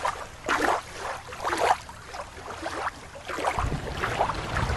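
River water lapping and splashing at the shoreline in uneven little surges, with wind rumbling on the microphone near the end.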